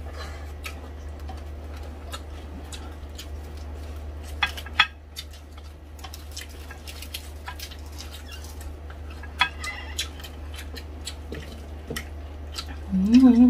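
Eating sounds close to the microphone: crisp clicks and crackles as crispy pata (deep-fried pork hock) is torn apart by hand and chewed, with a few louder clicks from the plate, over a steady low hum.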